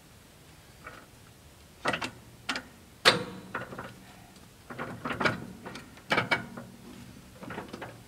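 Steel log clamp on a portable band sawmill being worked by hand: a string of sharp metal clanks and rattles, some ringing briefly, the loudest a little past three seconds in.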